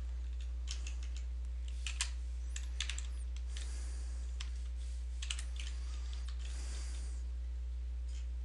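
Computer keyboard typing: scattered, irregular keystrokes, with two short hisses in between, over a steady low electrical hum.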